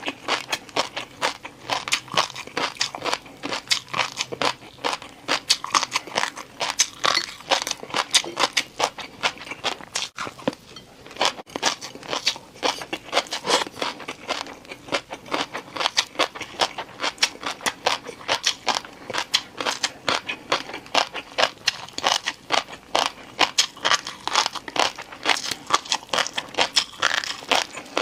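Close-miked eating of crunchy food: a dense, irregular run of crisp crunching and crackling bites and chews, with a brief lull about ten seconds in.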